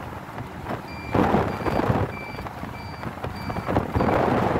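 Road and wind noise of a moving vehicle. From about a second in, a short electronic beep repeats about twice a second, like a vehicle's warning or reversing beeper.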